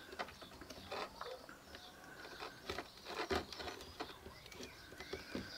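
Faint handling sounds: a few soft clicks and rustles as wire leads are fitted onto a cordless drill battery's terminals and held under a plastic spring clamp.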